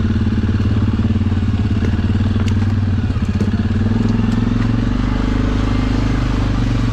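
ATV's single-cylinder engine running steadily at low speed, its firing pulses even and close to the microphone.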